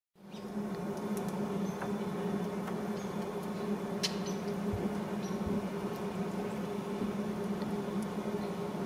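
A steady low buzzing hum, with a few faint sharp clicks scattered through it as a Douglas squirrel gnaws scales off a fir cone.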